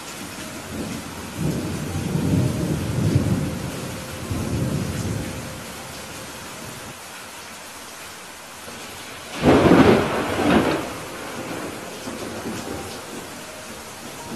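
Steady rain falling in a thunderstorm, with thunder rumbling low in two swells for several seconds from about a second in. About two-thirds of the way through comes a louder thunderclap, sudden at the start, that rolls away over a second or two.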